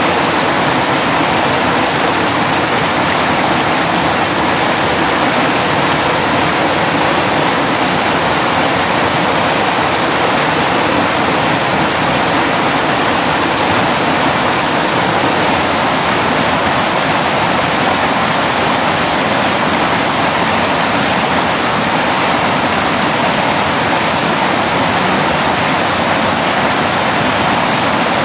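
Mountain creek rushing over boulders in shallow whitewater rapids: a loud, steady rush of water.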